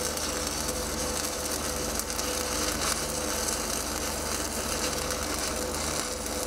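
Stick-welding arc burning a 7018 low-hydrogen electrode: a steady, dense crackle and hiss.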